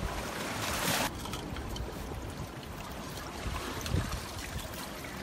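Seawater trickling and sloshing in a rocky tide pool, with a brief louder rush of water about a second in.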